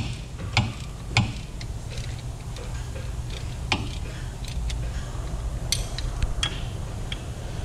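Sharp metallic clicks and taps from a hand wrench being swung on the drive-shaft bolts under a Suzuki Every, coming about every half second at first, then more scattered. A steady low hum runs underneath.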